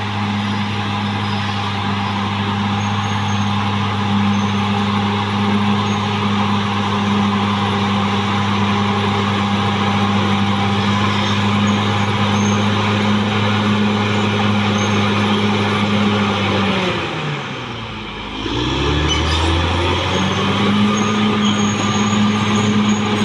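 Caterpillar D6R XL bulldozer's diesel engine running steadily. About seventeen seconds in its pitch drops sharply as the revs fall, then climbs back up to the same steady note a couple of seconds later.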